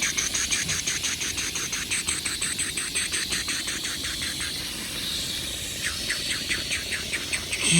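Insects chirping in a fast, even pulse, about seven chirps a second, pausing briefly a little past halfway before starting again.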